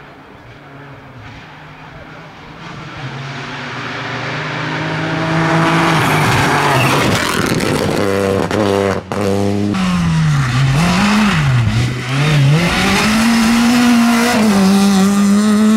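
Rally car engines at full throttle on a stage. One engine climbs in pitch as the car approaches. After an abrupt break, another drops and rises twice through quick gear changes, then is held at high revs near the end.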